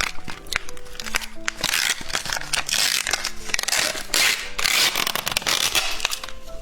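Close-miked crackling and crunching in repeated bursts as windmill candy is handled and eaten, over background music with a simple melody.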